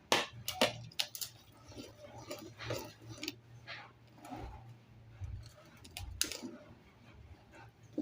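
A metal utensil clicking, tapping and scraping against a bowl as mashed banana is scooped out and transferred, with several sharp clinks and softer scrapes between them.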